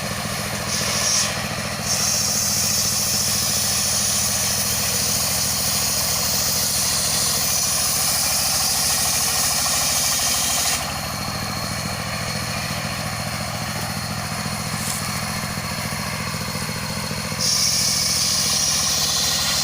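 Engine-driven circular sawmill: the engine runs steadily while the big blade cuts through a log with a loud high-pitched whine from about two to eleven seconds in, then again from about seventeen seconds to the end.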